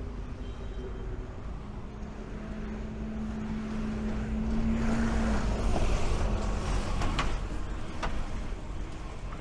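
Double-decker bus passing close on a city street: a steady engine hum, with engine and tyre noise swelling to a peak about six seconds in. Two short sharp sounds come near the end.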